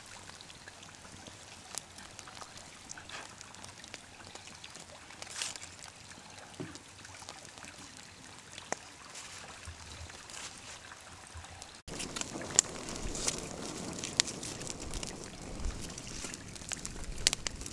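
Wood campfire crackling, faint with scattered pops at first. After about twelve seconds it becomes louder and closer, with frequent sharp snaps over a steady hiss from the fire, with whole fish roasting in the flames.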